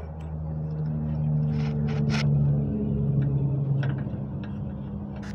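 A low, steady engine-like hum of a vehicle running nearby swells up over the first two seconds and holds. Light metallic clicks and taps from a hand working a jack's rusty caster wheel and bracket sound over it.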